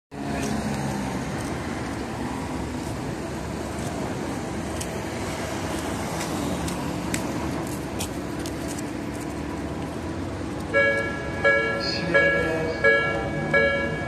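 Road traffic hum at a railway level crossing, then about eleven seconds in the Japanese crossing's electronic warning bell starts its repeated 'kan-kan' dings, about three every two seconds, signalling an approaching train.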